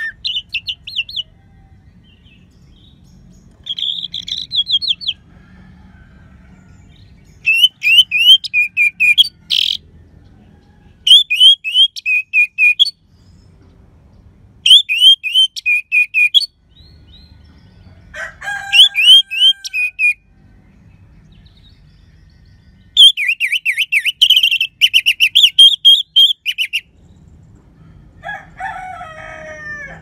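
Orange-headed thrush singing in repeated bursts of fast, clear, high notes, each phrase one to three seconds long with short pauses between. A few lower-pitched notes come in about two-thirds of the way through and near the end.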